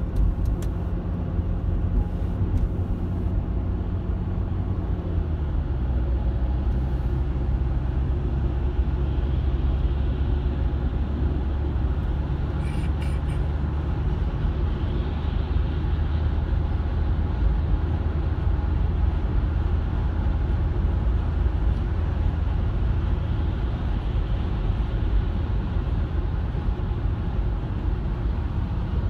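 Steady engine drone and tyre-on-road noise heard inside a car's cabin at motorway speed. The engine's hum drops a little in pitch about five seconds in.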